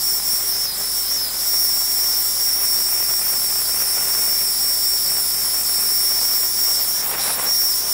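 Spotting-table air gun blowing a steady hissing jet with a high whistle over a damp spot on a garment, drying the freshly bleached spot.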